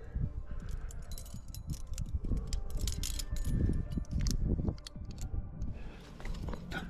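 Climbing gear (carabiners and quickdraws on a harness) jangling and clinking irregularly as the climber moves up the rock, thickest in the middle stretch, over scuffs and knocks from hands and shoes on the stone and low rumbling handling noise.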